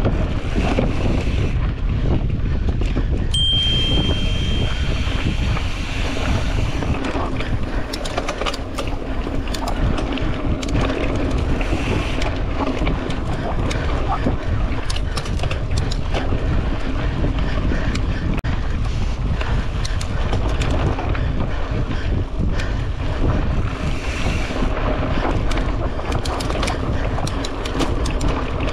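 Mountain bike being ridden fast over a rough dirt trail: wind buffeting the on-bike microphone over a steady rumble of tyres on the ground, with many short knocks and rattles from the bike over bumps. A brief high squeal sounds about three and a half seconds in.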